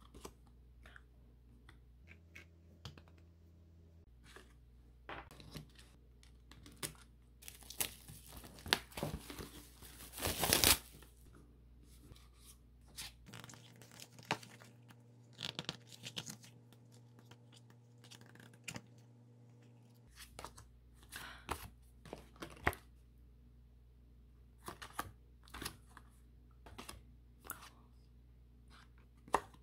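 Packaging being torn open and crinkled by hand, with a longer tear from about 8 to 11 seconds in, the loudest moment, and scattered light clicks and taps of items being handled before and after.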